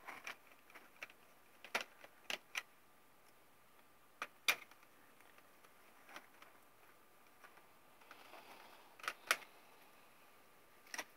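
Small scattered clicks and taps of tiny laptop screws and a screwdriver being handled against a laptop's plastic bottom case, a few sharp ticks spaced irregularly, with a pair close together about nine seconds in.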